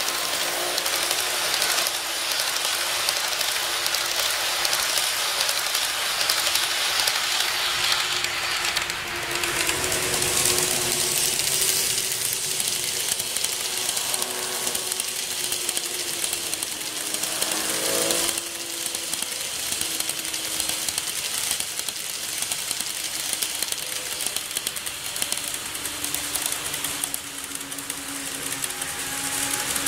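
KATO N-scale E233 series 3000 model train running on the layout track: a continuous fine rattle of its small wheels over the rails, with a faint wavering hum underneath.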